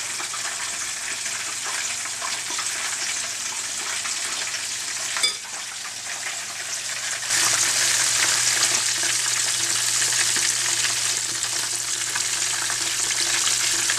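Small breaded meatballs deep-frying in hot vegetable oil, a steady sizzling that gets louder about seven seconds in. A single short knock about five seconds in.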